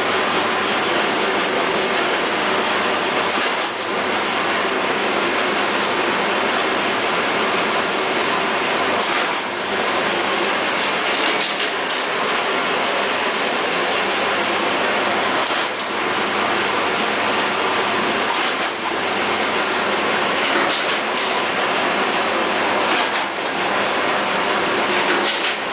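Paper-handling machine running under its clear plastic cover: a loud, steady mechanical noise that dips briefly every few seconds.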